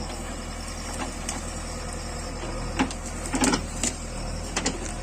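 JCB backhoe loader's diesel engine running steadily, with a few sharp knocks near the end, about a second apart.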